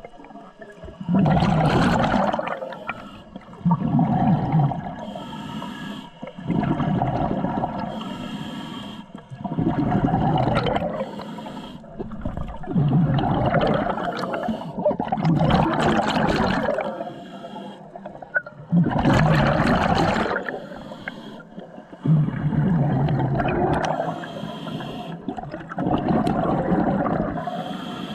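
Scuba diver breathing through a regulator underwater: a rush of exhaled bubbles about every three seconds, with quieter inhales between.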